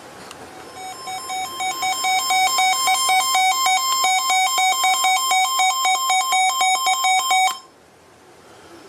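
Emergency alert attention tone: a harsh electronic alarm of two steady pitches with a fast pulsing flutter. It starts about a second in, grows louder over the next two seconds, and cuts off suddenly near the end, signalling that a severe thunderstorm warning follows.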